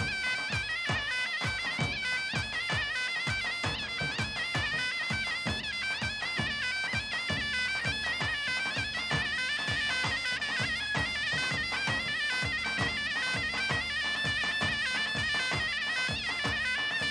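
A reedy folk wind instrument plays a fast, ornamented dance tune over a steady low beat of about three strokes a second.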